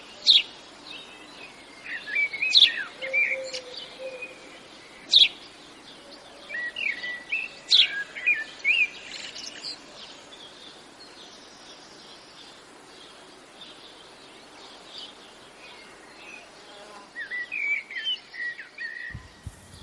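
Songbirds chirping and calling outdoors: a run of short, sharp, high chirps in the first half, a quieter stretch, then more twittering near the end.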